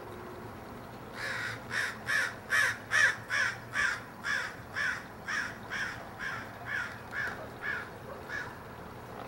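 Crows cawing in a steady run of about sixteen harsh caws, roughly two a second, loudest near the start and fading toward the end: an alarm raised at coyotes passing below.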